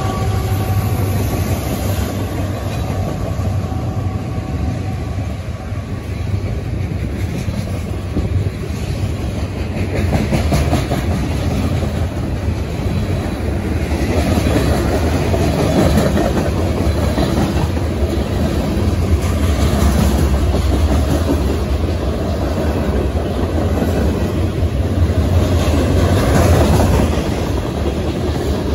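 Freight train cars rolling past close by: a steady rumble of covered hoppers and tank cars, with the wheels clacking over the rail joints.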